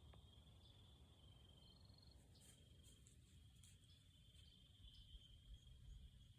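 Near silence with crickets trilling faintly: a steady high chirr that breaks off and resumes several times.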